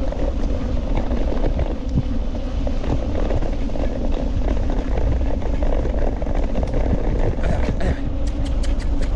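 Dog scooter rolling over a sandy dirt track behind one pulling dog: a steady rumble and rattle of the wheels and frame with wind on the microphone, and a quick run of sharp clicks near the end.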